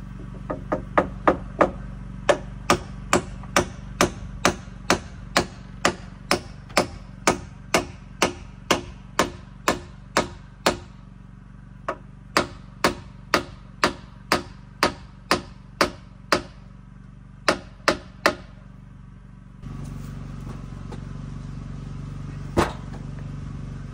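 Hammer driving nails into the timber rafter framing of a porch roof: a long run of sharp, evenly paced blows, about two a second, with a short pause partway through. The blows stop, and one lone knock follows near the end.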